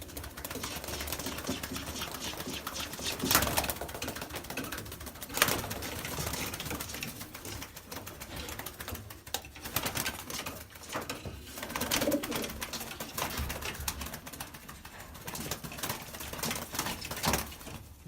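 Pigeons in a loft cooing and shuffling about, with a few sharp knocks or claps, the loudest about three and five seconds in and again near the end.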